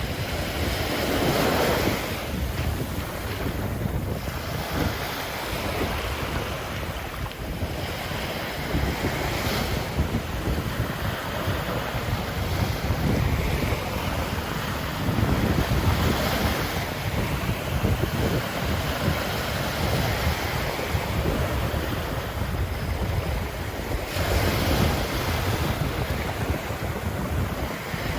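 Ocean surf breaking and washing up a sandy beach in a steady wash, with louder surges as bigger waves come in about a second in, in the middle and near the end. Wind rumbles on the microphone underneath.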